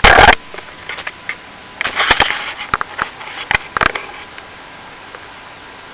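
A short, loud rustling scrape at the very start, then a handful of sharp clicks and brief rustles over the next two seconds, fading to a steady hiss.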